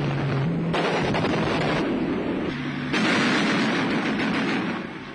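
Rapid, dense aircraft cannon fire from the Hurricane's four 20 mm cannon, in a continuous rattle that changes abruptly about a second in and again near three seconds, where it gets louder, then falls away near the end.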